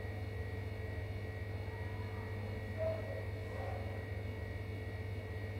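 Steady low electrical hum with a faint, thin high whine over it, unchanging throughout.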